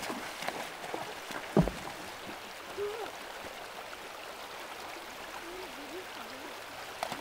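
A horse's hooves splashing as it wades through a shallow stream crossing, with sharp splashes early on and one loud heavy splash about a second and a half in, then a steady trickle of moving water.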